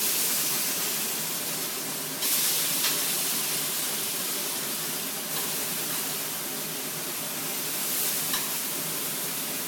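Chicken sizzling steadily in a hot skillet. The sizzle starts suddenly and gets louder about two seconds in.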